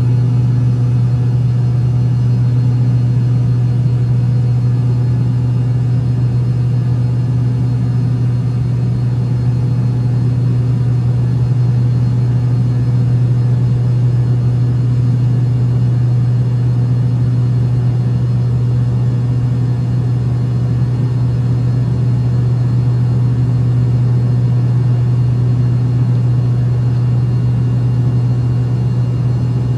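Steady, unchanging mechanical drone: a strong low hum with faint constant whining tones above it and no starts or stops.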